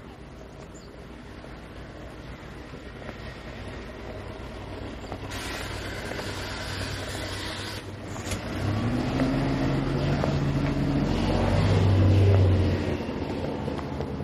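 A motor vehicle's engine passing close by: its low hum builds over several seconds, is loudest about twelve seconds in, then fades. A hiss cuts in for about two seconds a little after five seconds in.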